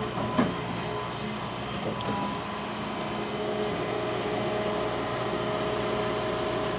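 Large excavator's diesel engine running steadily under work, with a couple of brief knocks in the first two seconds.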